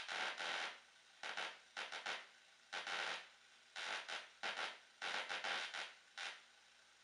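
Spark-gap transmitter interference picked up by a console stereo's AM radio tuned to static, heard through its speaker: about six bursts of harsh, crackling buzz, each under a second long, with quieter static hiss between them.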